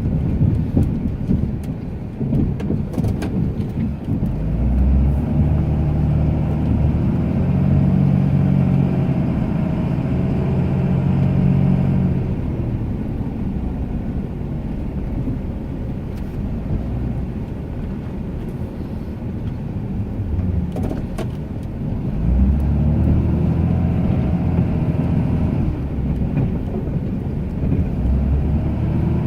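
Ram 2500 pickup's engine working as it plows snow. It swells louder twice for several seconds at a time as the truck pushes, and settles back to a lower drone in between.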